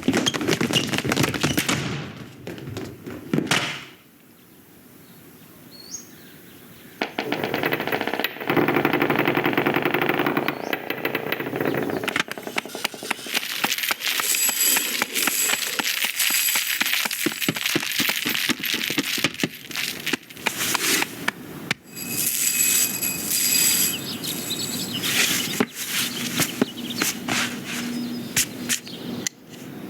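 Sound-effects track of an animated film, with no dialogue or music: many overlapping effects made of dense, rapid clicks, taps and clattering. There is a quieter stretch about four to seven seconds in.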